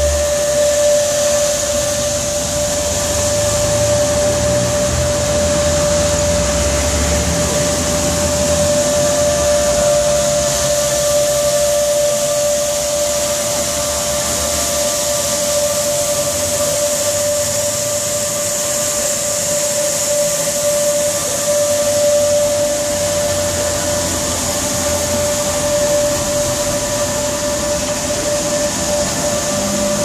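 Teknojet automatic carpet washing machine running steadily as it scrubs a soapy carpet: a constant whine over a high hiss, with a deeper rumble that eases after about eight seconds.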